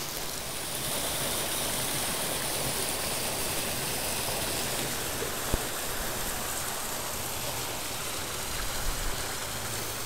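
Creek water rushing steadily over rocks, with one sharp click about five and a half seconds in.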